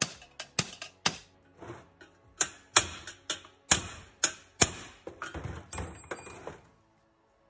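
Socket ratchet on an extension working a spark plug, clicking in short strokes: sharp single clicks a few tenths of a second apart that quicken into a faster run near the end, then stop.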